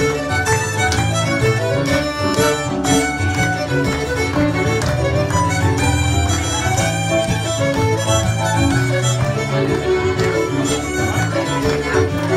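Live Cape Breton fiddle music: fiddle playing a tune of quick, continuous notes over keyboard accompaniment with a steady bass.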